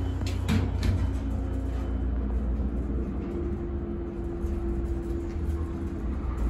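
Armor traction elevator car riding upward: a steady low rumble of travel. There are a couple of clicks about half a second in, and a steady hum joins about three seconds in.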